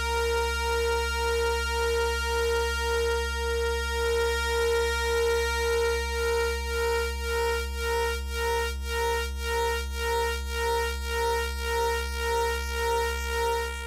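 Modular synthesizer patch running through a Malstrom Arkan voltage polarizer (bipolar VCA): a steady buzzy pitched tone over a low hum. The tone pulses evenly in volume a little under twice a second, the pulses growing more distinct in the second half as more signal is mixed in.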